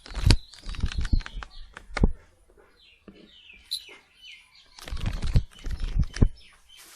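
Horror sound effect: flurries of sharp thuds and clatter, with a run of short falling chirps about three to four seconds in.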